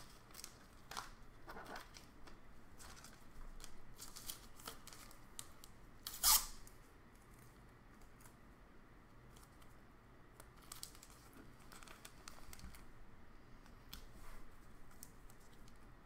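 Trading cards being slid into clear plastic sleeves and rigid plastic toploaders: scattered short crinkles and scrapes of plastic, with one louder, sharper scrape about six seconds in.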